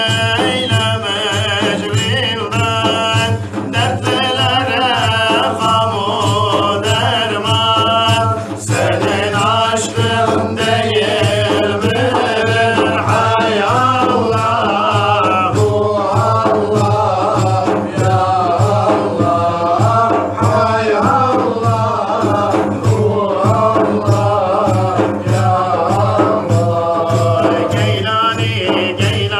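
Group of men singing a Sufi ilahi together, with large frame drums beaten in a steady rhythm under the voices.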